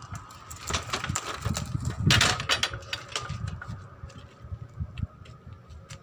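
Metal clanks and knocks as a wheeled pneumatic wheel-nut wrench trolley is moved and its wrench set against a bus wheel hub, with a louder noisy burst about two seconds in.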